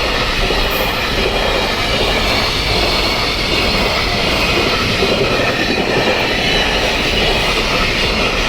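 A train passing at close range, its wheel and rail noise loud and steady.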